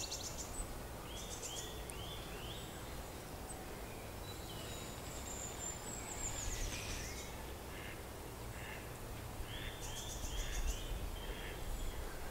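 Woodland birdsong: small birds singing in short repeated phrases, with quick high-pitched note series about a second in and again near the end, over a steady low rumble.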